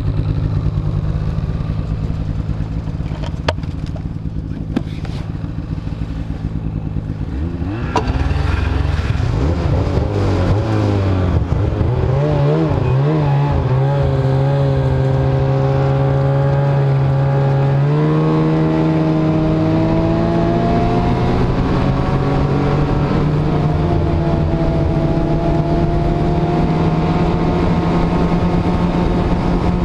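Snowmobile engine idling steadily, then throttled up about eight seconds in, with its pitch wavering as the sled pulls away. It then runs steadily at speed, its pitch climbing slowly.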